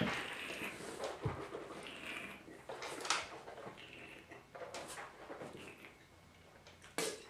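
A wine taster slurping and swishing red wine in the mouth, drawing air through it in several short noisy bursts, with a soft knock about a second in. Near the end the lid of a metal spit bucket is handled.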